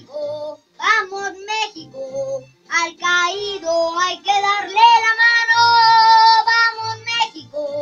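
A boy singing solo in short phrases, then holding one long note for about two seconds near the end.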